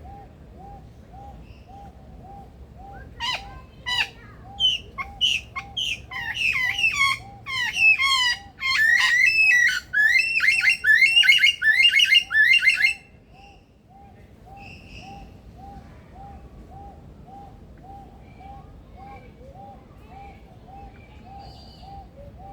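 Male superb lyrebird singing loudly, a rapid run of varied mimicked calls with clicks and sweeping whistles, starting a few seconds in and stopping abruptly about ten seconds later. Behind it a soft note repeats steadily, two or three times a second.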